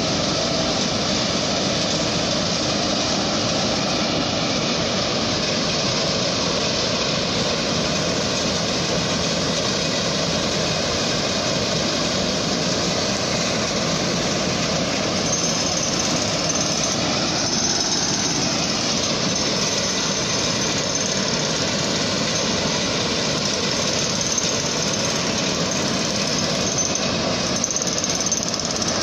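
A heavy vehicle's engine running steadily at close range, a dense unbroken mechanical noise with no let-up.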